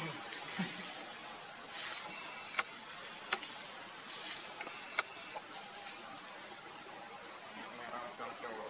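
Steady high-pitched drone of insects, with three sharp clicks between about two and a half and five seconds in.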